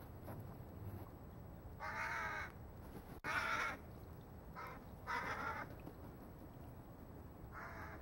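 Hooded crows cawing: about five harsh, hoarse caws spaced one to two seconds apart, one of them clipped short.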